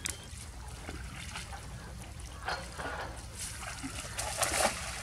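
Shallow muddy water splashing and trickling as hands grope in it, in irregular bursts, the loudest splashes near the end.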